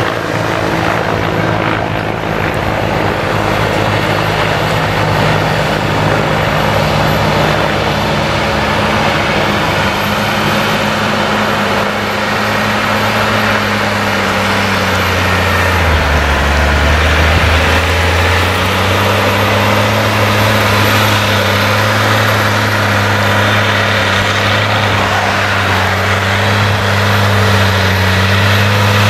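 Tractor diesel engine running steadily under load as it pulls a plough through stubble. About halfway through, the engine note drops lower for a couple of seconds, then picks back up.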